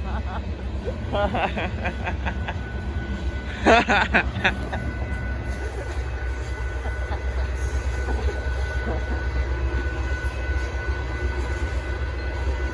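Union Pacific freight train rolling past: a steady low rumble from the cars, with a thin, steady wheel squeal setting in about four seconds in. A person's voice breaks in briefly just before the squeal starts.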